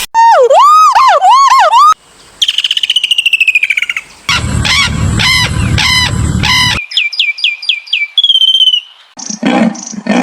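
A string of short, abruptly cut clips of different animal calls, mostly bird-like: loud swooping whistles, a falling run of notes, quick chirps over a low rumble, a brief trill, and a rapidly repeated call near the end.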